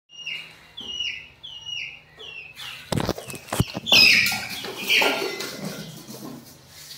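A chick peeping, four falling peeps about two-thirds of a second apart, then a few sharp knocks and a loud scuffle and rustle as the baby monkey jumps into the cardboard box where the chick sits.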